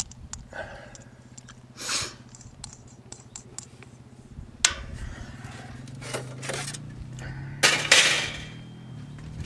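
Metal clinks, a sharp click and scrapes as a folding backpacking oven and its stove are handled; the loudest rattle comes near the end. Under them is the steady low hum of motorcycle engines, which grows louder past the halfway mark.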